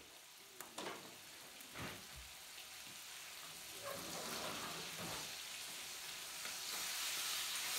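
Walleye fillets frying in butter in a skillet, a steady sizzle that grows louder toward the end, with a few knocks of tongs and a spatula against the pan as the fillets are turned.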